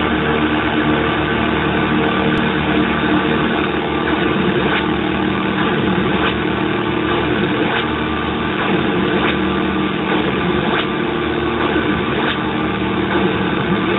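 Nova Drone synthesizer producing a dense, steady drone of many layered tones, its oscillators and filters sequenced by a Raspberry Pi, with faint clicks about every second and a half.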